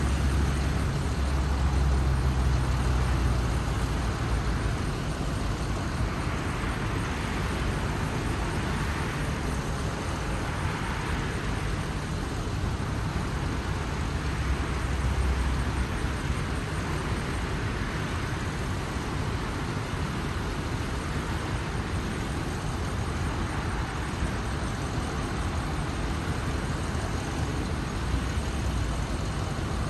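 Cars and police SUVs driving past one after another: a steady sound of engines and tyres on the road, with a deeper engine rumble swelling at the start, about halfway through and again near the end.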